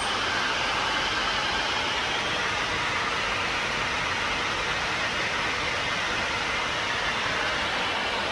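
Automatic crystal pendant-making machine running with a steady, even hiss-like machine noise and no distinct strokes.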